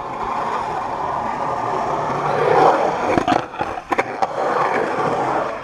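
Skateboard wheels rolling over a concrete skatepark, growing louder as the board comes closer. About three to four seconds in come several sharp clacks of the board popping and landing, then the rolling carries on.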